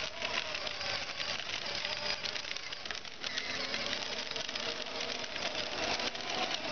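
Children's battery-powered ride-on toy motorcycle driving slowly: its small electric motor and plastic gearbox whine at a steady, slightly wavering pitch over a dense crackling rattle of the wheels on cracked asphalt.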